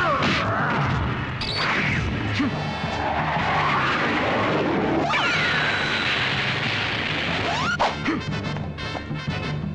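Film soundtrack of a battle scene: dense crashing and rumbling sound effects mixed with background music. About halfway a falling electronic whine and a steady high tone sound, then a few sharp hits near the end as the music comes through more clearly.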